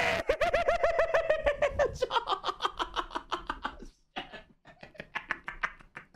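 A man laughing hard, a fast run of "ha-ha" pulses about seven a second, falling slightly in pitch. After about two seconds the laughter turns quieter and breathier, in broken bursts that die away near the end.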